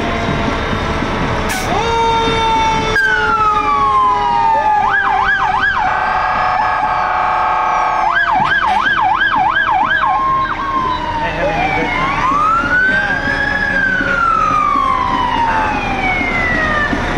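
Fire truck sirens sounding as the fire apparatus passes: long wails that climb and then slowly fall away. About five seconds in and again from about eight to ten seconds, there is fast up-and-down yelping.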